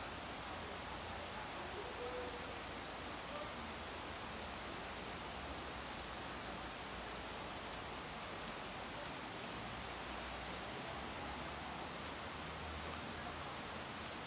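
Steady rain falling during a thunderstorm: an even hiss with a few faint drip ticks.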